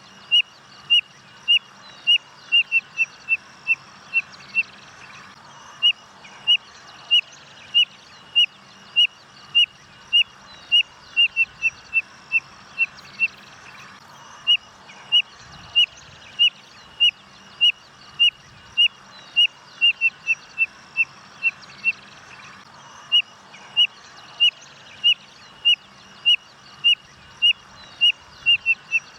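Spotted nothura (codorna-amarela) singing: a series of short, high whistled notes that starts evenly spaced and speeds up into a quicker, slightly falling run, then breaks off, repeated about four times.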